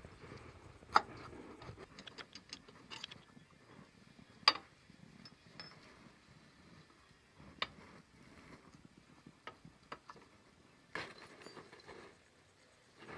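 Metal clinks and ticks from hand tools, a bolt and the rear suspension strut rod being handled. Two sharp clanks stand out, about a second in and about four and a half seconds in, with a quick run of small ticks between them and a few scattered clicks later.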